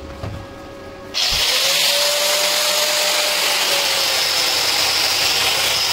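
Angle grinder fitted with a wire brush, switched on about a second in and scouring a block of welded metal nuts. It is a steady, loud, hissing scour with a faint motor whine that rises slightly and then falls back.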